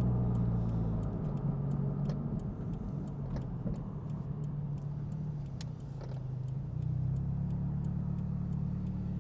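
Turbocharged Scion FR-S flat-four engine running steadily at light cruise, with scattered faint clicks. The engine note drops about a second in and builds again near the end.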